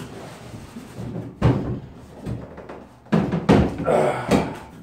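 Old wooden kitchen wall cabinet being dragged and shifted on the wooden framing of a loft. It scrapes and knocks several times, with the loudest thuds about a second and a half in and again around three and a half seconds.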